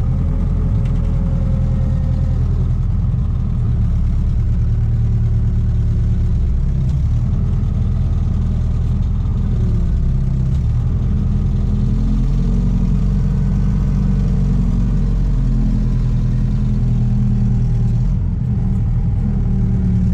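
Ostrówek hydraulic excavator's diesel engine running steadily, its pitch rising and falling under hydraulic load as the crocodile grapple works a tangled pile of uprooted branches.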